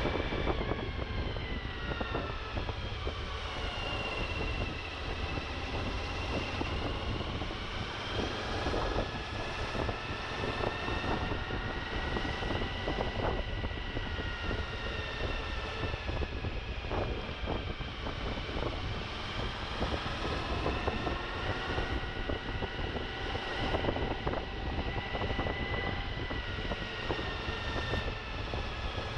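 Suzuki V-Strom motorcycle engine running under way off road, its note slowly rising and falling with the throttle, with wind rumbling on the microphone.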